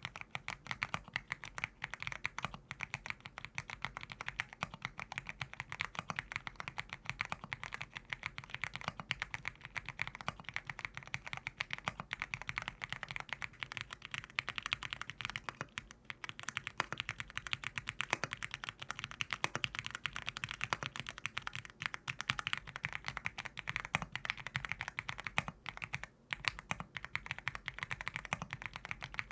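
Fast, continuous typing on a 75% mechanical keyboard: a dense stream of keystrokes, with a couple of brief pauses.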